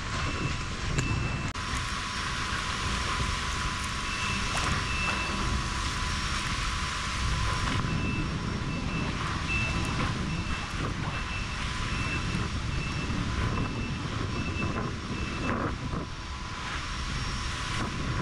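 Wind buffeting the microphone over choppy water around a small boat, a steady rumble. A high electronic beep repeats at even spacing, about once every two-thirds of a second, in short runs and then steadily for several seconds past the middle.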